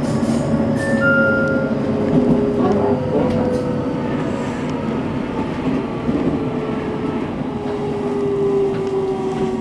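313-series electric train braking into a station: the rumble of the wheels on the rails under a traction-motor whine that slides steadily down in pitch as it slows. Two short high tones sound about a second in.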